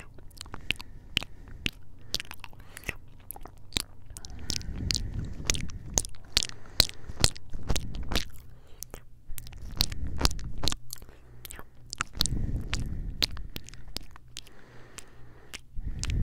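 Close-up kisses and lip smacks into a handheld Tascam recorder's microphones: a quick run of many sharp, wet clicks, with several low rumbling swells where the mouth presses on the microphones.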